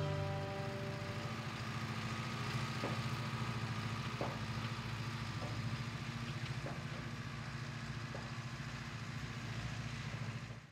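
Tractor engine idling steadily, with a few faint clicks.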